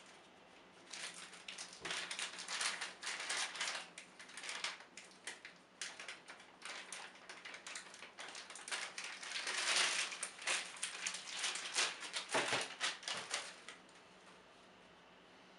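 Clear plastic packaging bag crinkling and rustling as it is cut and pulled open by hand, a dense run of irregular crackles that dies away shortly before the end.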